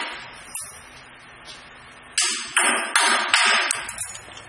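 Four quick metallic clanks in a row, each ringing briefly, from metal parts of a vial filling and capping machine being handled and fitted.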